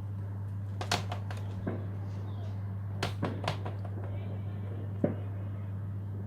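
Fireworks going off: about seven sharp bangs at irregular intervals, the loudest about a second in and near five seconds, over a steady low hum.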